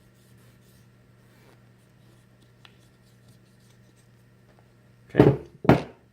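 Faint scratchy rubbing of a solvent cloth scrubbing residue off a Glock 19 pistol slide, followed near the end by two loud short sounds.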